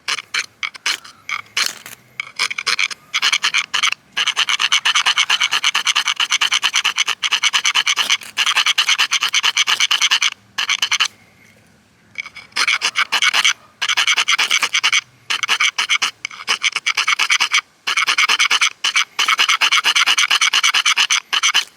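A half-inch ferrocerium rod being scraped hard and fast to pile its shavings into tinder. A few short scrapes come first, then long runs of rapid rasping strokes, with a pause about halfway through and another short break near the end.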